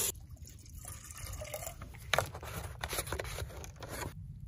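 Water pouring from a plastic bottle into a metal kettle stops right at the start. Faint drips and a few sharp clicks of handling follow, the sharpest about two seconds in, while the bottle's plastic screw cap is put back on near the end.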